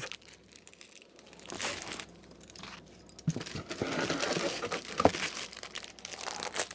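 Packaging of a flag crinkling and rustling as it is handled, in irregular bursts, with a short sharp click about five seconds in.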